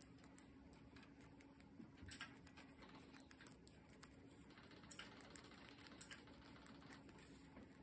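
Faint, irregular clicks of knitting needles as stitches are worked, over a faint steady low hum.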